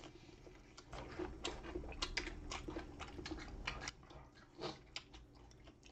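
Mouth noises of eating crispy honey-glazed fried chicken: biting and chewing with a run of sharp crunches and crackles from about one to four seconds in.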